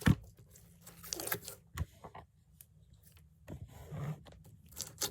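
Thick slime being worked by hand: sticky tearing and squelching as it is pulled and pressed, with a sharp smack right at the start and scattered small clicks.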